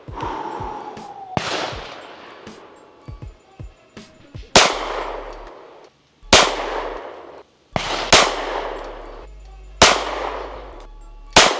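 Single 9mm pistol shots from a Smith & Wesson CSX E, fired slowly one at a time at a distant target, each with a long echoing tail. A lighter shot comes about a second and a half in, then five loud shots follow roughly every second and a half to two seconds.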